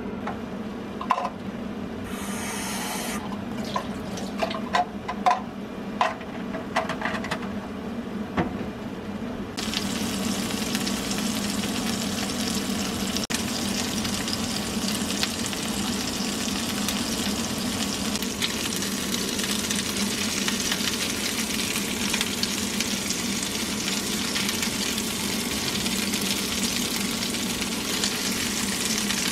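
Hamburg steak patties frying in oil in a nonstick frying pan: scattered light crackles at first, then from about ten seconds in a steady, loud sizzle of hot fat, over a low steady hum.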